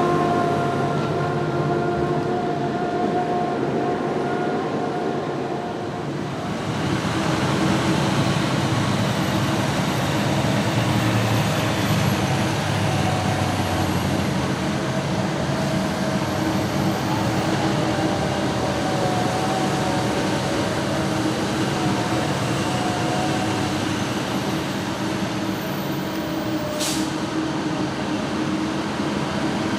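Heavy farm tractors and machinery running under load during a corn silage harvest: a steady engine sound with a whining tone, growing fuller and louder about six seconds in and then holding steady.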